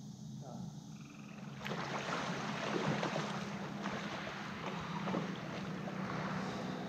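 Lake water lapping and splashing close by, louder from about two seconds in, over a steady low drone of a distant motorboat.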